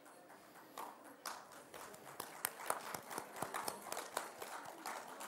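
Scattered audience applause, faint and uneven: it starts up about a second in, is fullest in the middle and thins out near the end.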